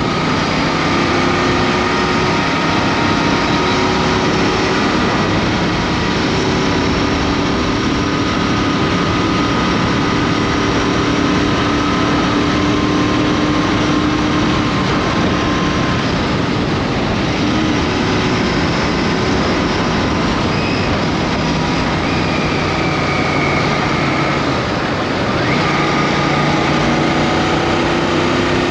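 Royal Enfield Interceptor 650's parallel-twin engine running at road speed under a heavy, steady rush of wind noise, its note shifting a few times as the speed changes.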